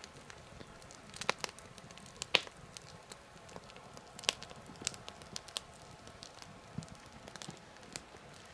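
Irregular crackling and snapping over a quiet background, with a few louder snaps, the sharpest about two seconds in.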